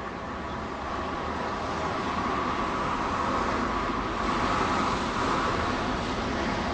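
An electric tram approaching on its track, its running noise and a steady whine growing louder over the first four seconds or so, then holding.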